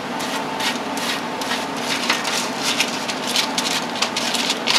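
Crumbled crispy bacon scraped off a foil-lined pan into a hot butter-and-flour roux, crackling and sizzling as it lands, with foil crinkling against the pan.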